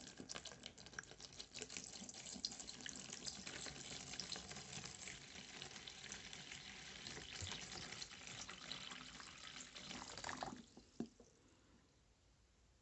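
Water running from a tap, starting suddenly and cutting off after about ten and a half seconds, followed by a single short knock.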